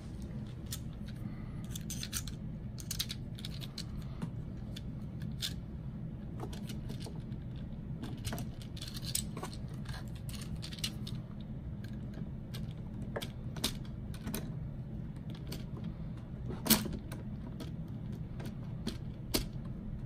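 Scattered small clicks and taps from the plastic parts of an iRobot Roomba i7 robot vacuum being handled and picked at with a tool, the sharpest click about three-quarters of the way through, over a steady low hum.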